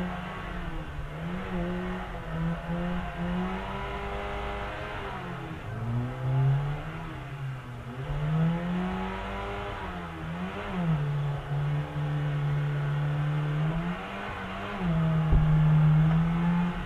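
Car engine revving up and down over and over, with held stretches between the rises, and a single sharp knock about 15 seconds in.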